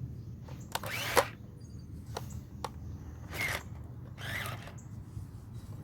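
Small electric motors and gearboxes of radio-controlled scale vehicles whirring in short bursts during a pull, with a few sharp clicks, over a steady low hum.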